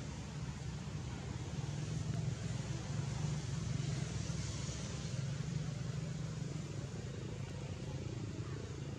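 Steady outdoor background noise: a low rumble with an even hiss above it, like distant traffic.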